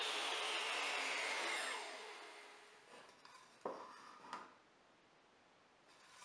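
Table saw coasting down after being switched off, its blade whine falling steadily in pitch and fading over about two seconds. Then two light wooden knocks as the box is handled and set into the plywood spline jig.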